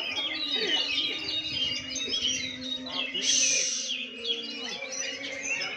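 Several oriental magpie-robins (kacer) singing at once, a dense tangle of overlapping whistles, trills and chirps. A short burst of hiss comes about three seconds in and lasts about a second.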